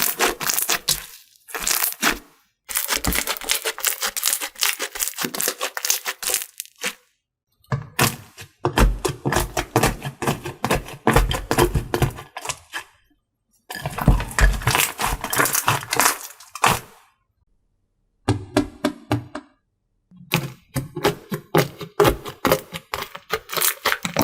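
Slime being squeezed and pressed close to the microphone, giving dense crackling and popping, in several separate stretches of a few seconds with short silences between them.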